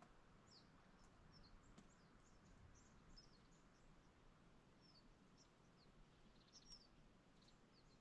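Small birds calling: faint, high, short chirps, mostly falling in pitch, scattered throughout, with a quick run of them near the end.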